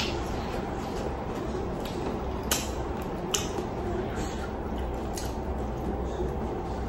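A person eating chicken and rice by hand: chewing, with a few sharp clicks, the two loudest a little under a second apart near the middle, over a steady low hum.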